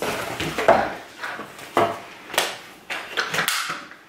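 Hard plastic parts of a cordless stick vacuum and its attachments being handled and set down: an irregular string of clacks and knocks with some rustling.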